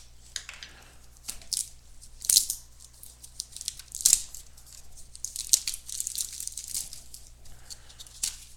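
Plastic shrink-wrap being torn and crinkled off a sealed cardboard box of baseball cards: scattered sharp crackles and rustles, busiest a little past the middle.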